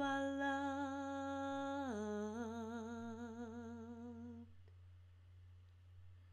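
A woman's unaccompanied voice humming the held final note of a song, stepping down to a lower note about two seconds in and wavering with vibrato until it fades out about four and a half seconds in.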